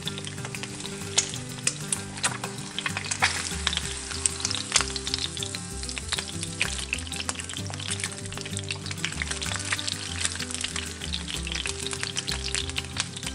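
Eggs frying in hot oil: a steady sizzle full of quick crackling pops.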